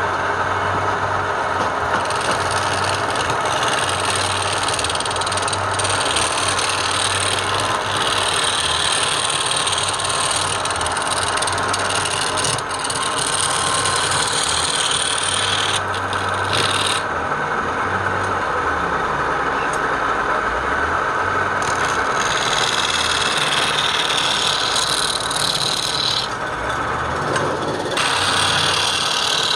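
A motor-driven tool working wood: a steady motor hum under a rasping, scraping cut that comes and goes as the tool bites and lifts off, dropping out briefly twice.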